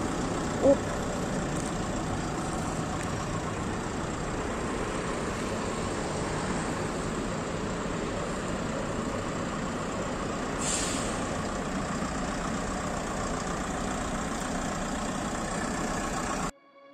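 Diesel engine of a Fiat-based Pilote motorhome running steadily at low speed, with a brief hiss about eleven seconds in.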